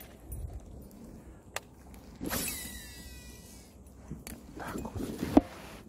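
Baitcasting fishing reel whirring for about a second, its whine falling in pitch as the spool runs, followed by several clicks and knocks of the reel and rod, the sharpest one near the end.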